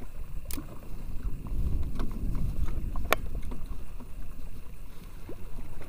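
Steady low rumble of wind and water around a small boat at sea, with a few sharp clicks.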